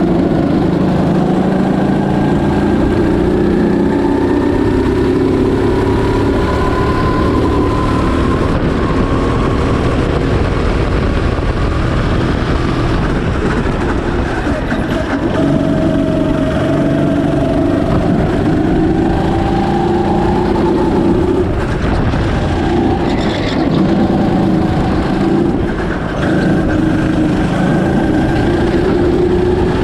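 Rental go-kart engine heard from on board a Birel N35, running under load around the track. Its pitch climbs for several seconds at a time along the straights and drops back as it slows for corners, several times over, under a constant low rush of wind and vibration.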